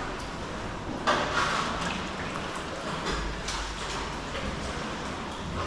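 Sea water splashing and sloshing around sea kayaks, with a few soft splashes about a second apart.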